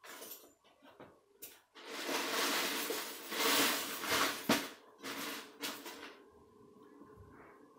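Plastic K'nex rods and connectors being handled and pressed together, rustling and clicking, with one sharp click about four and a half seconds in.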